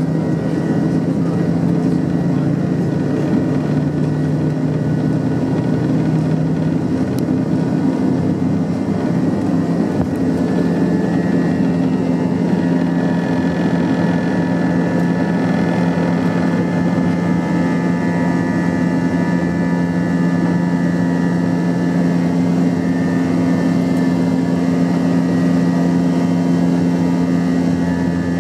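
Cabin noise of an Airbus A321-231's IAE V2500 turbofan engines at takeoff thrust through the takeoff roll and lift-off: a steady loud drone with low hums, joined by a higher whine from about ten seconds in.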